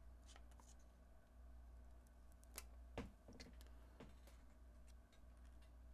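Near silence, with a few faint clicks and taps from fingers handling a small adhesive speaker cover on a phone held in a plastic installation tray, over a low steady hum.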